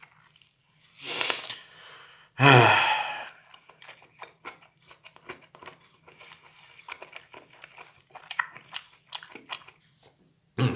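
A person chewing microwaved meadow mushrooms (champignons), with many small wet mouth clicks and smacks. About two and a half seconds in, the eater makes a short, loud voiced sound.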